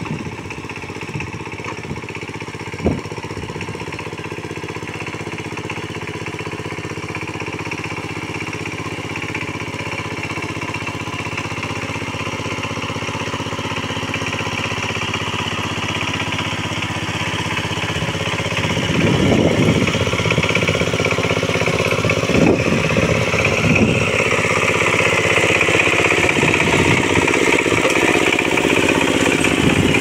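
Power tiller's single-cylinder diesel engine running steadily as the machine churns through a flooded paddy on cage wheels. It gets louder as the tiller comes close, about two-thirds of the way through, with a few heavier low thuds.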